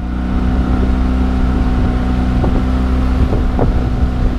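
Outboard motor of an inflatable dinghy running steadily under throttle.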